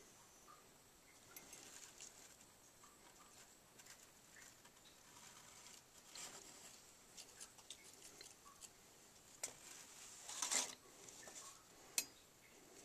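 Faint handling noise: scattered small clicks and rustles, with a louder rustle about ten and a half seconds in and a single sharp click near twelve seconds.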